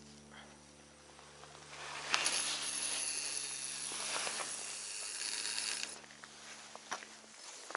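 A long cast with a surf-casting rod: a sharp snap about two seconds in, then fishing line hissing off the spinning reel's spool for about four seconds until it stops abruptly, followed by a few mechanical clicks from the reel near the end. A faint steady hum runs underneath.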